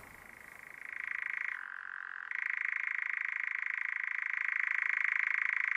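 A high, steady, rapidly pulsing trill that starts about a second in, dips briefly, then carries on evenly.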